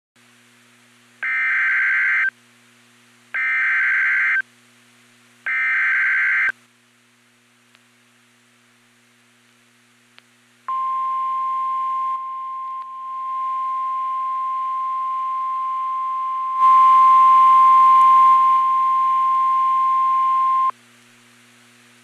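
NOAA Weather Radio Emergency Alert System signal: three one-second bursts of buzzing SAME data tones, a second apart, carrying the alert code for a severe thunderstorm warning. Then, about ten seconds in, a steady single-pitch warning alarm tone sounds for about ten seconds. A faint low hum runs underneath.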